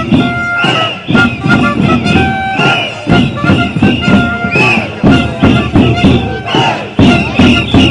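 Street protest noise: loud, fast rhythmic drumming over a crowd, with short held high tones cutting in now and then.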